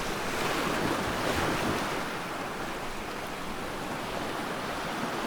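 Ocean surf: a steady rushing wash of waves, a little louder in the first two seconds.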